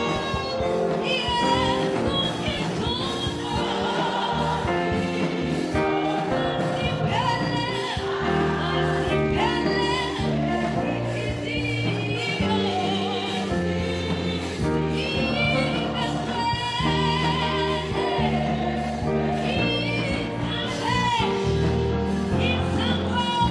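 Gospel choir singing in harmony, with a lead voice on a microphone, over a low bass accompaniment.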